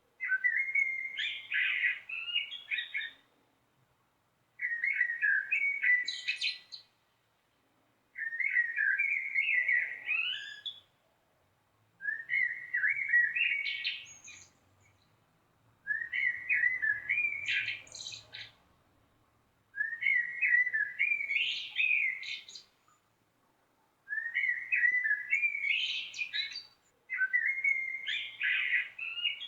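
A melro (blackbird) singing: a run of song phrases about three seconds long, separated by short pauses, each phrase ending in higher, sharper notes.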